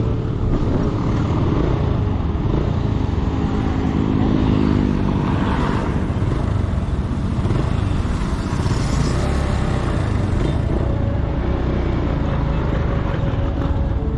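Yamaha SZ-16 single-cylinder motorcycle engine running while riding, with steady wind and road rumble on the handlebar camera; other motorcycles pass briefly near the middle.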